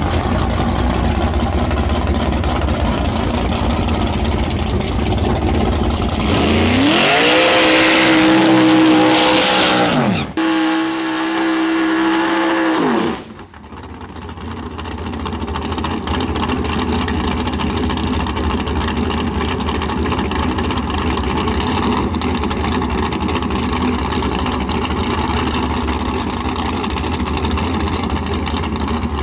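Nitrous Mustang drag car's engine running with a steady rumble, then revving up and holding high twice during a burnout. It drops back to steady running about halfway through.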